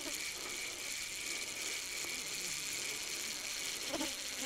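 Spinning reel being cranked as a lure is retrieved, its gears giving a steady whir, with a soft knock near the end.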